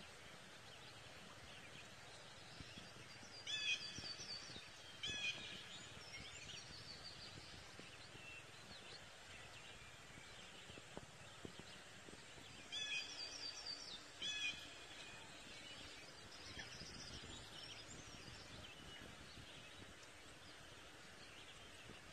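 Faint outdoor ambience with birds calling: scattered soft chirps over a steady low hiss, and two short runs of louder, repeated calls, a few seconds in and again about halfway through.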